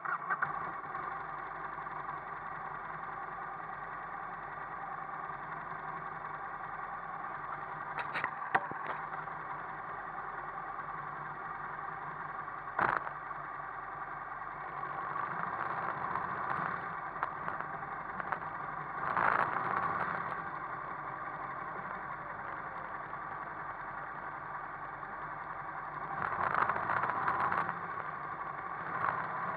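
Motorcycle engine that cuts in abruptly, then runs steadily with a few short louder blips and a sharp click, and a rush of noise near the end as the bikes get moving.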